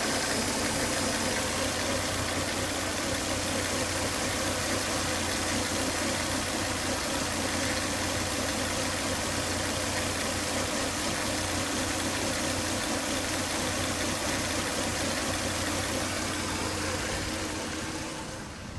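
Volvo S80 2.5T's turbocharged five-cylinder engine running steadily at idle with a steady whine over it, the whine that comes with high crankcase vacuum from a failed crankcase breather box. The sound fades away near the end.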